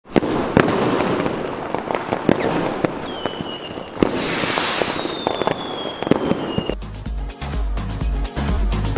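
Fireworks going off: a rapid string of sharp bangs over crackling, with a long whistle falling slightly in pitch and a hissing whoosh in the middle. About two-thirds of the way through, electronic dance music with a heavy beat comes in.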